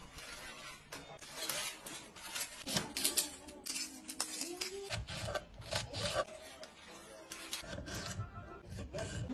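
Close-miked vegetable-prep sounds: crackly rustling and rubbing as asparagus is laid into a parchment-paper boat and a shallot is handled, then a knife cutting through shallot and cherry tomato on a wooden board, in many short, crisp strokes.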